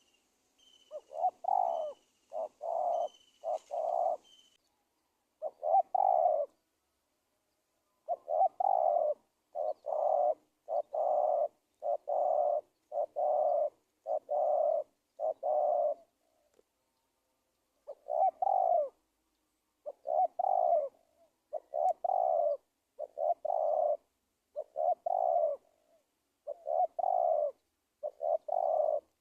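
Spotted dove cooing: a long series of short, low coos in runs broken by brief pauses. This is a decoy dove's call of the kind used to lure wild doves. A small bird chirps faintly in the first few seconds.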